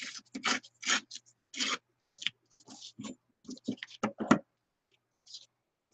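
Paper being torn along the edge of a metal ruler in a series of short rips, which stop about four and a half seconds in.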